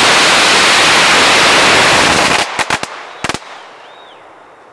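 About ten thousand strung firecrackers going off together in one dense, continuous crackle. It stops abruptly about two and a half seconds in, followed by a few last scattered bangs, the final one just after three seconds.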